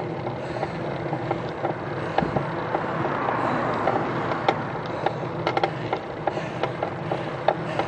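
Road bicycle climbing, heard from a camera mounted on the bike: steady drivetrain and tyre noise with frequent small clicks and rattles.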